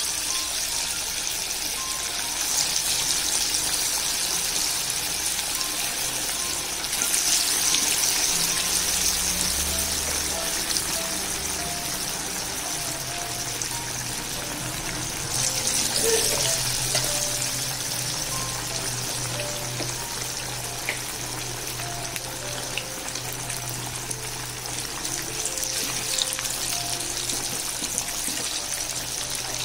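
Marinated chicken pieces deep-frying in hot oil: a steady, dense sizzle of bubbling oil that swells louder about seven seconds in and again about fifteen seconds in.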